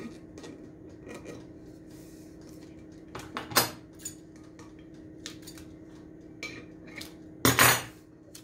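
Hands handling a paper-wrapped stainless steel tumbler and tape on a countertop: light clicks and knocks, a sharp knock about three and a half seconds in, and a louder scraping rustle near the end, over a faint steady hum.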